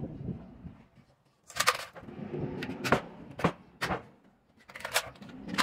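Wood chisel breaking out the thin slats of wood left between closely spaced saw kerfs in a timber beam: about five sharp knocks and cracks, spaced about a second apart.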